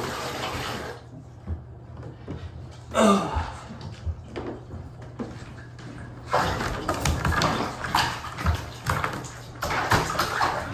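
Water running from a bathtub tap, shut off about a second in. Scattered knocks follow, with a short loud squeak falling in pitch near three seconds. From about six seconds in, several seconds of water splashing and spraying in the bathtub as a dog is washed.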